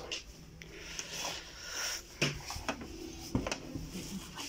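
Light rustling from handling, with a few sharp knocks.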